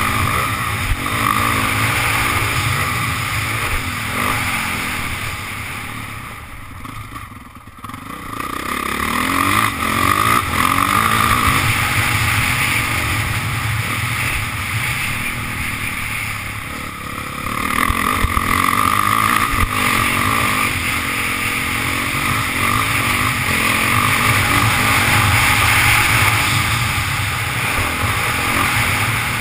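Dirt bike engine revving hard and changing pitch as the throttle opens and closes, heard from on board the moving motocross bike. About six seconds in the engine drops away off the throttle for a couple of seconds, then picks up again.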